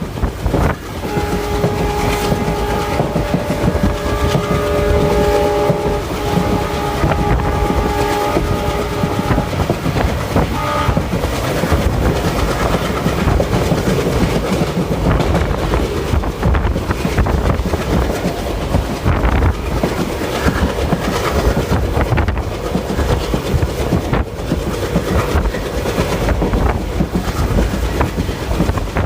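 Passenger train running, heard from on board, with rumbling and wheels clattering over rail joints. The locomotive horn sounds a chord of several tones for about eight seconds starting a second in, broken by short gaps, then gives a short toot a couple of seconds later.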